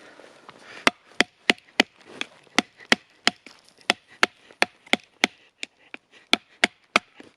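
Firewood being split with rapid, evenly paced strikes, about three a second, starting about a second in.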